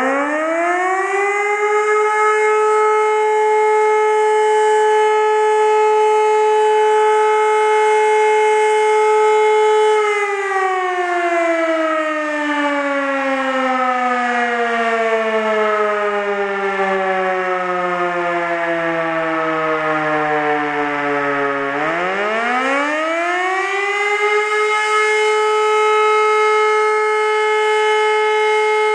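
E57 electromechanical motor siren sounding a test alarm, recorded up close at its rotor. It holds a steady, loud wail, then about ten seconds in it winds down, its pitch sliding lower for about twelve seconds. Near the end it spins back up to the full steady wail.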